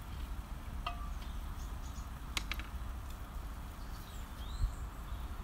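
Outdoor ambience: a low steady rumble of wind on the microphone, a couple of faint clicks about two and a half seconds in, and a short falling bird chirp near the end.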